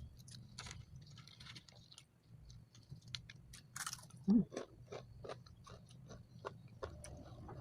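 A person chewing and eating with their mouth close to the microphone: irregular wet smacks and crunches of fried food, with a louder mouth sound a little after four seconds in.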